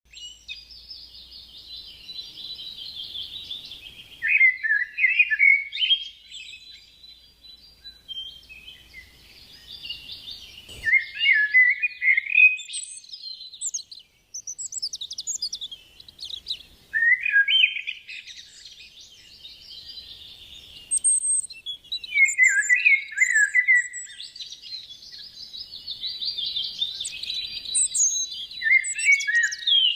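Birds singing: a running, twittering song with louder, rapid warbled phrases about every five or six seconds.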